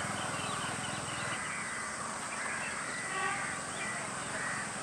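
Outdoor bird chorus: small birds chirping and calling over a steady high background hiss, with one buzzier call about three seconds in. A low hum underneath fades out about a second in.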